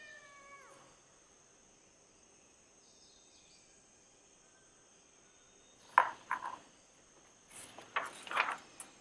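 A domestic cat meows once, its pitch falling, and the meow ends under a second in. Later come a few short rustles and taps of paper, about six seconds in and again near the end.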